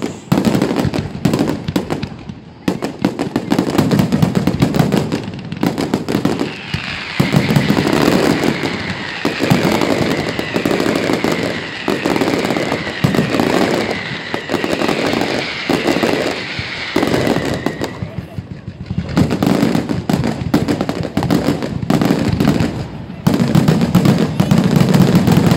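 Fireworks display: rapid bangs and crackling from bursting shells and ground mines, with a run of repeated high whistles from about seven seconds in until about eighteen seconds in.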